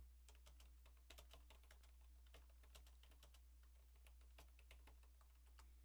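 Faint typing on a computer keyboard: a quick, uneven run of soft key clicks over a low hum.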